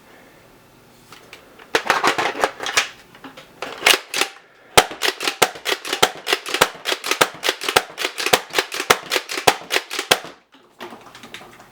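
Cryptid foam-dart blaster firing a rapid string of shots, about four to five a second, for roughly five seconds, after an earlier denser clattering burst.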